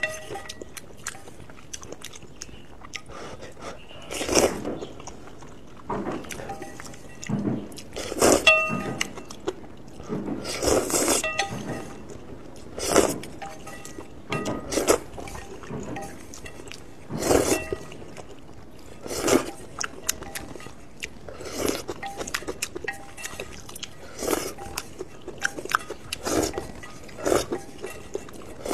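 Close-miked eating of noodle soup: slurping of noodles and broth in short bursts every couple of seconds, with chewing between them. Now and then chopsticks clink against the metal bowl and it rings briefly.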